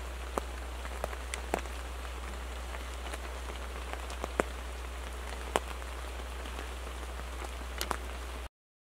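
Rain falling on a photography blind: a steady hiss with scattered single drops ticking sharply on the blind, a few of them louder about halfway through. The sound cuts off suddenly near the end.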